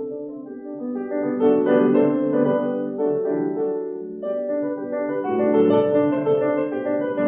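Background classical piano music with a run of notes.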